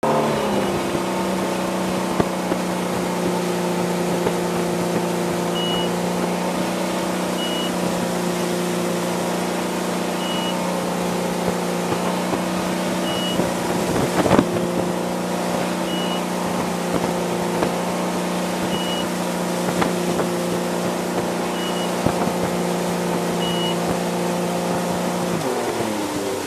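Ski boat's engine running at a steady 32 mph towing a slalom skier, over the hiss of wind and spray. Eight short high beeps come from the boat's speed-control unit as it passes the entry gate, the six slalom buoys and the exit gate: about three seconds apart, with shorter gaps at each end. There is a short knock about halfway through, and near the end the engine drops in pitch as the boat throttles back.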